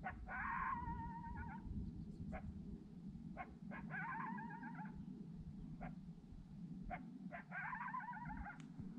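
Three drawn-out, whining, coyote-like calls a few seconds apart, each falling slightly in pitch, with short sharp clicks in between.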